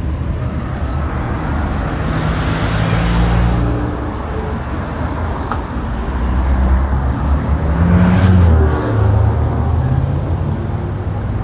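Road traffic: motor vehicle engines running and vehicles passing, with the loudest pass about eight seconds in.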